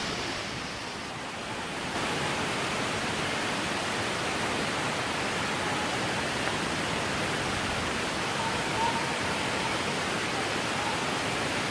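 Waterfall rushing steadily, running full of water after recent rain.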